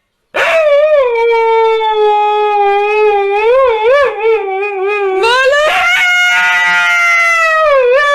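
A dog howling in two long, drawn-out howls, the pitch wavering up and down in places; the second howl starts about five seconds in.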